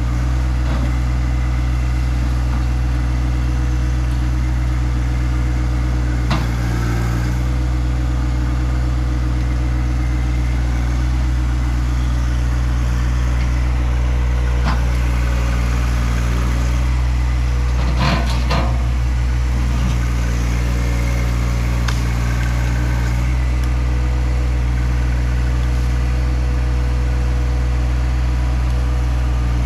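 John Deere 1025R sub-compact tractor's three-cylinder diesel engine running steadily, with a few short knocks and clanks, the busiest cluster about two-thirds of the way through.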